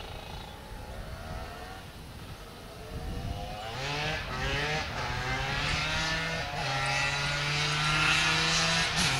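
Honda 370R two-stroke quad engine (a big-bore TRX250R) under way: faint at first, then revving up in rising steps about three seconds in and growing louder as it comes closer, holding a steady high pitch through the last few seconds.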